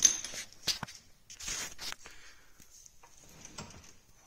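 Workshop handling noises around the separated gearbox and differential: a few sharp metallic clicks and knocks at the start and just under a second in, a short scraping rustle about a second and a half in, and a fainter one near the end.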